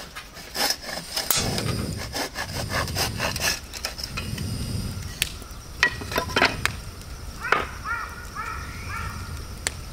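Rustling, rubbing and scraping from hands handling gear, with several sharp clicks about two-thirds of the way in. A short run of about five quick chirps follows near the end.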